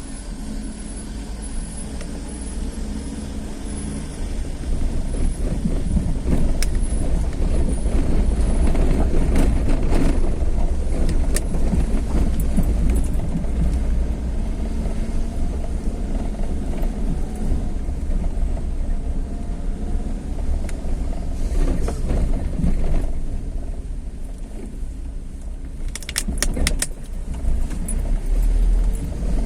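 Vehicle travelling along a road: a continuous rumble of engine and tyres with rattling, and a few sharp clicks near the end.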